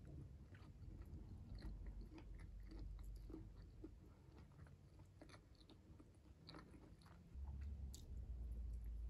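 Soft, close-miked chewing and biting of garlic shrimp, with many small wet mouth clicks. It grows fuller about seven seconds in as a new forkful of shrimp goes into the mouth.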